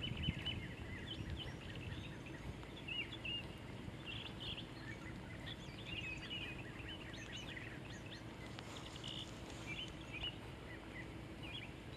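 Small songbirds chirping and twittering, many short high calls scattered throughout, over a low steady background rumble.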